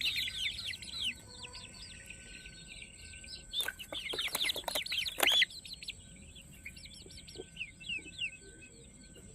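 A brood of Peruvidai country-chicken chicks peeping: many high, falling cheeps overlapping, swelling to a louder cluster about halfway through and thinning out near the end.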